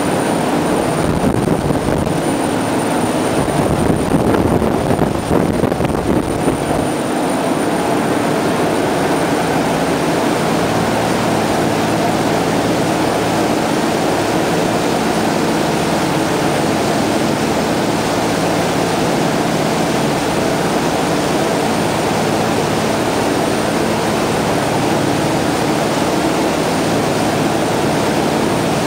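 Steady drone of a high-speed ferry's Caterpillar 3412E V12 diesels running at cruising speed, mixed with the loud rush of the churning wake and wind. Wind buffets the microphone unevenly for the first several seconds.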